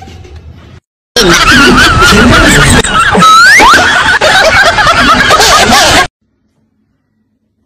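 Canned laughter sound effect, loud and wavering, with a quick rising whistle-like glide about three seconds in. It cuts off suddenly about six seconds in.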